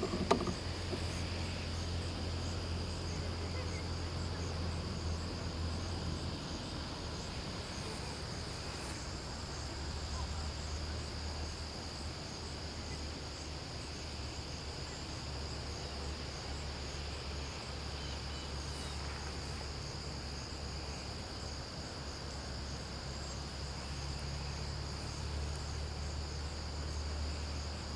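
A steady insect chorus, a continuous high trill like crickets, over a low steady hum.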